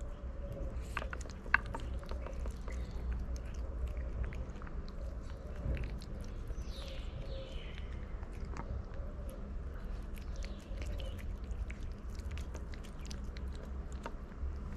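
Tabby cat eating wet canned cat food from a dish, chewing and smacking with many quick, wet clicks, one louder click about a second and a half in. A steady low rumble runs underneath.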